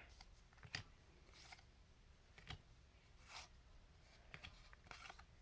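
Faint, scattered slides and ticks of trading cards being handled one at a time, as cards are moved off a pack's stack.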